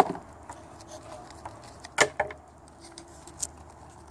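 Paper and packaging being handled: a few short crackles and knocks, the loudest at the very start and again about two seconds in, followed by a couple of smaller ones.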